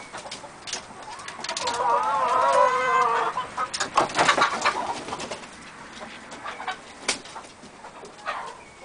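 Laying hens clucking and calling, with a longer drawn-out wavering call about two seconds in. A few short knocks and rustles sound around four and seven seconds.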